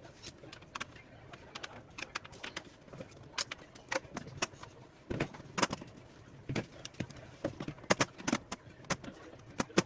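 Irregular clicks and knocks of small hard parts and tools being handled, typical of work on a UPS's battery pack during a battery change.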